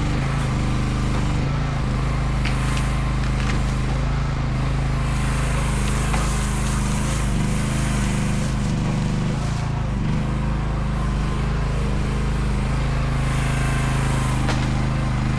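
Mini excavator engine running steadily under working load, its tone shifting as the hydraulics are worked, with a few short knocks and clicks along the way.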